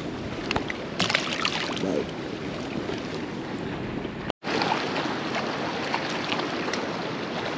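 Wind buffeting the microphone and choppy lake water lapping against a kayak hull, with a few small clicks and a brief louder burst about a second in. The sound cuts out for an instant just past halfway.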